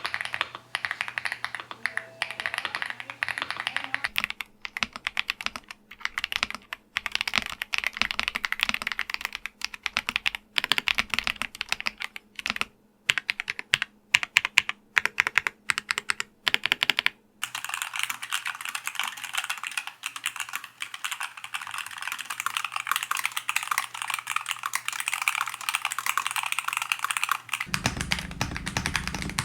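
Fast typing on four keyboards in turn: a Gravastar Mercury K1, then about four seconds in a Royal Kludge L75 typed in bursts with short pauses, then about seventeen seconds in a MelGeek Made68 Air low-profile Hall-effect keyboard, and near the end a Syntech Chronos 68 Hall-effect keyboard.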